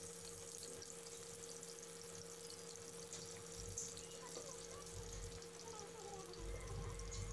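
Faint sizzle of pointed gourd and potato chunks frying in hot oil in a non-stick pan, with a steady low hum underneath.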